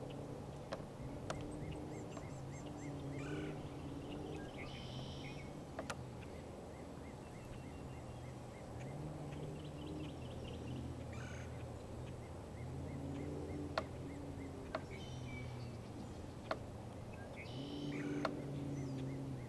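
Natural lakeshore ambience: small birds chirping, with a low-pitched hum that comes and goes about five times, each lasting a second or two, and a few sharp clicks.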